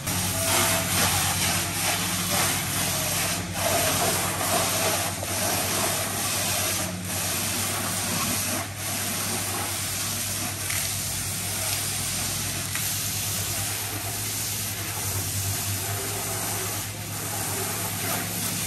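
High-pressure water spray hissing steadily as it washes a truck cab, with a low steady hum underneath. The hiss swells slightly every couple of seconds.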